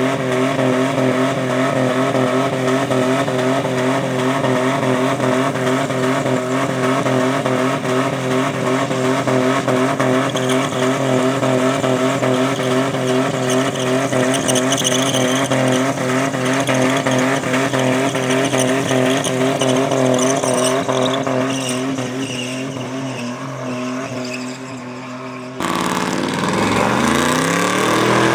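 Compact Ford Ranger pickup doing a burnout: its engine held at steady high revs while the rear tyre spins and squeals on the pavement, easing off after about twenty seconds. Near the end, after a sudden change, a second, full-size pickup's engine revs up in rising sweeps as its burnout begins.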